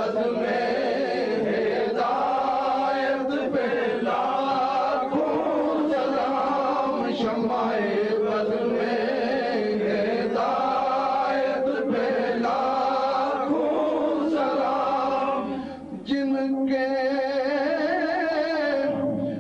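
Devotional chanting by several voices together, a melodic line sung continuously. A little after two-thirds of the way through the sound briefly drops, then one long note is held with a wavering pitch.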